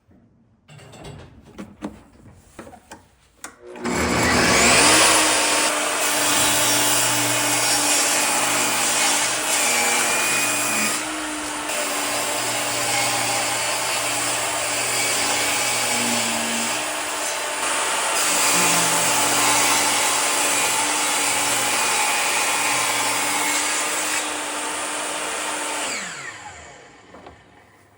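A corded woodworking power tool starts with a rising whine about four seconds in, runs loud while working wood, then is switched off and spins down with a falling whine near the end. A few light knocks come before it starts.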